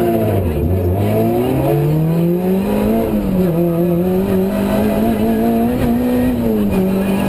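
Ford Puma rally car's engine heard from inside the cabin, driven hard: the pitch dips briefly at first, climbs steadily, drops at a gear change about three seconds in, then holds at high revs with a short dip near the end.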